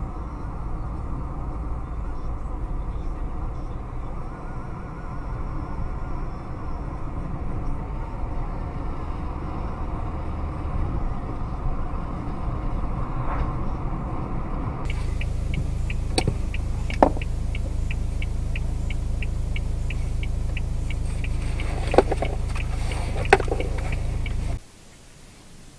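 Car driving, heard inside the cabin: a steady low rumble of engine and road noise. About fifteen seconds in the sound changes abruptly to a heavier rumble with a regular ticking about three times a second and a few sharp knocks, and near the end it drops away sharply.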